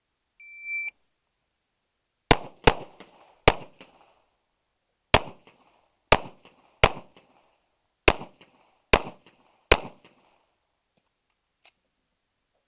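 An electronic shot timer beeps once, a short steady tone, then about a second and a half later a .45 ACP pistol fires nine shots over about seven seconds in uneven pairs and singles, each a sharp crack with a brief echo.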